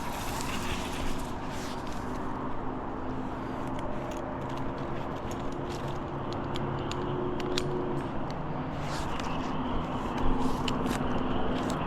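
An engine running steadily at a low, even pitch, with scattered clicks and knocks over it.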